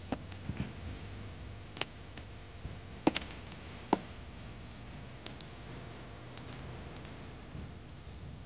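Brass fittings and a metal gas canister clicking and tapping as they are handled and a hose fitting is brought to the engine's brass connector: a few sharp clicks in the first four seconds, then only faint ticks.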